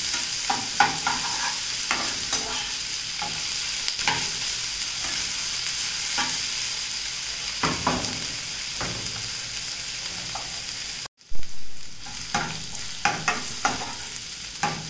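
Onions, green chillies and capsicum sizzling in oil in a non-stick pan while being sautéd, with a spatula scraping and tapping against the pan at irregular strokes. About eleven seconds in, the sound cuts out for a moment. It comes back quieter with a sharp knock, and the sizzle and spatula strokes go on.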